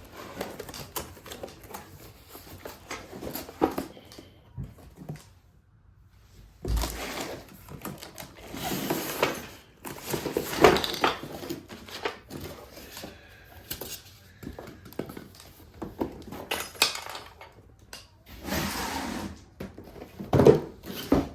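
Packaging being opened and parts handled: cardboard and wrapping rustling in stretches, with scattered knocks and metal clinks as the pieces of an angle grinder cut-off stand are taken out.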